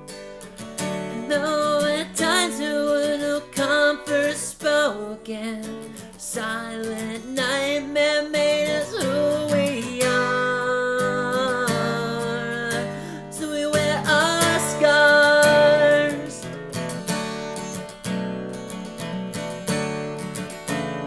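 Acoustic guitar strummed, with a woman singing over it in long held, wavering notes.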